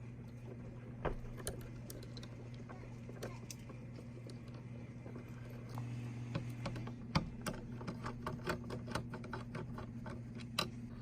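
Irregular small clicks and taps of hands and a tool working wires into the terminals of a Tesla Wall Connector, coming faster in the second half, over a steady low electrical-sounding hum.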